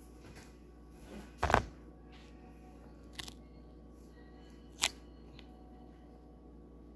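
Handling noise from a camera being moved: one solid knock about a second and a half in, then two sharper clicks a couple of seconds apart, over a low steady background hum.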